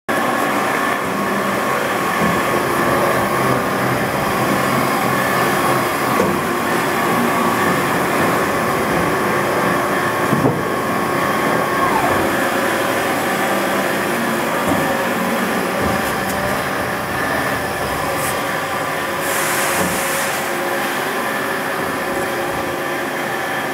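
Steady hum of running machinery with a whine that drops to a lower pitch about halfway through.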